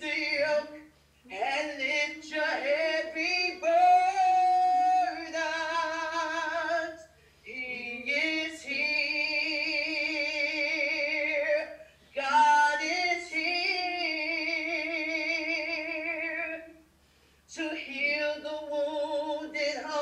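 A woman singing solo without accompaniment, in long phrases with a wide vibrato on the held notes and short breaks for breath between them.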